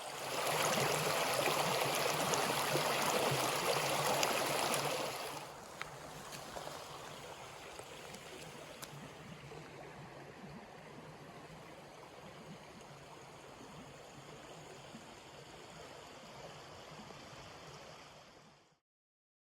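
Creek water flowing and trickling over rocks. Louder for the first five seconds or so, then suddenly fainter, and cutting off near the end.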